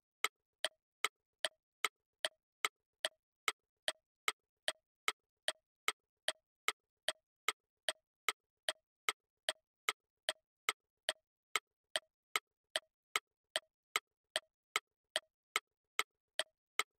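Clock-ticking sound effect for a quiz countdown timer: sharp, even ticks, about two and a half a second.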